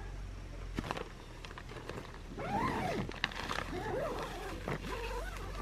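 An animal whining in several rising-and-falling cries from about halfway through, with a short click about a second in.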